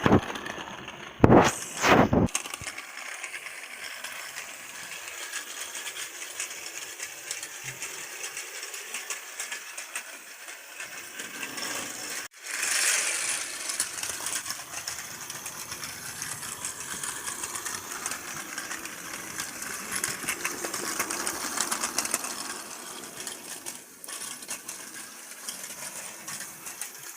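Plarail battery-powered plastic toy train running on its plastic track: a small electric motor whirring and wheels and plastic parts clattering steadily. Two sharp clicks come in the first two seconds, and the running sound breaks off for an instant near the middle.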